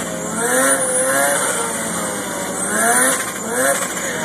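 Mazda RX-7's big-turbo rotary engine revving up and down in repeated sweeps as the car does a burnout.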